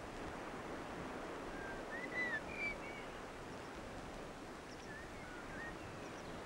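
Steady rush of surf, with a small bird giving a few short chirps and whistles about two seconds in and a few more near five seconds.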